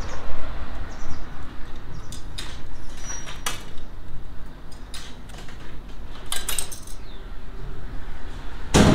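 Coins being fed into a baguette vending machine's coin slot: a series of sharp metallic clicks and clinks, a cluster of them about six seconds in, then a louder knock near the end, over a steady low rumble.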